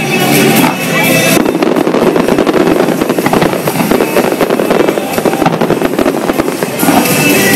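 Fireworks display: aerial shells bursting in a rapid string of bangs and crackles, loudest in the first second and again near the end.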